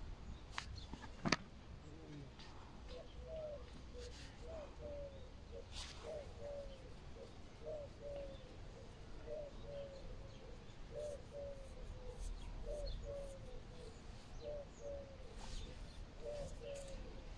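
A dove cooing in short phrases of two or three low notes, repeating about once a second from about three seconds in, with faint chirps from small birds. A sharp click near the start is the loudest sound.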